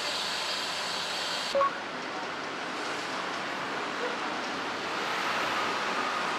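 Steady outdoor city-street ambience: an even wash of traffic and urban hum with no voices close by. A short click comes about one and a half seconds in, after which the hiss sounds duller.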